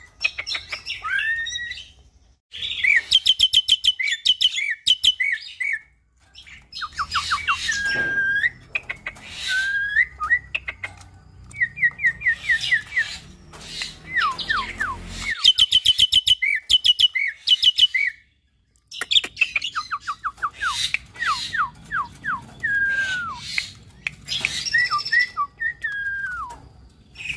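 Caged hybrid myna, a cross of common myna (jalak nias) and pied starling (jalak suren), singing a long, varied song. It runs rapid strings of repeated chattering notes and fast trills into gliding whistles, with short pauses about two, six and eighteen seconds in.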